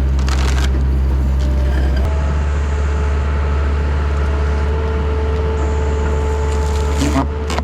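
Takeuchi TL10 compact track loader's diesel engine running steadily under a tree shear, with a steady higher whine above the engine drone; the engine note changes abruptly about two seconds in.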